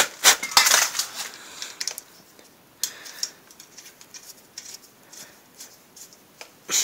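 Scattered clicks and knocks of handling, several sharp ones in the first second and then sparse faint ticks, with a short rustle about three seconds in. The tractor's engine is not running.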